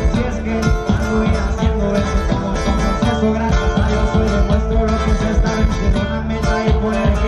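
Live band playing a Spanish-language song over loudspeakers, led by plucked guitars over a strong, steady bass line.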